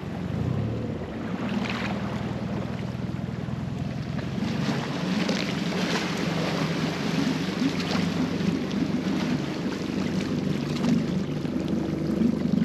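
A boat motor running steadily under way, a low pulsing hum that swells up in the first second and then holds, with water and wind noise over it.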